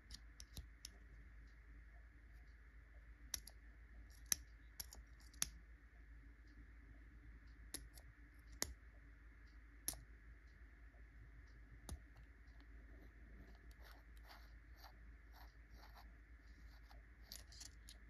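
Small sharp clicks and ticks from the metal parts of a Rotring 800 mechanical pencil as it is turned and its nose section unscrewed: several separate louder clicks, then a run of softer ticking near the end, over a faint steady hum.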